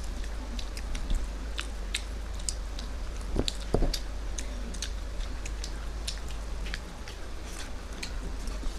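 Close-up eating sounds of a meal of rice and fish curry: wet chewing and mouth smacks in a scatter of short sharp clicks, with two louder knocks about three and a half seconds in, over a steady low hum.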